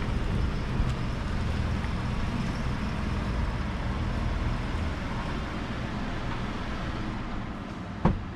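Ford F-150 pickup truck running, a steady low rumble. A single sharp click comes near the end.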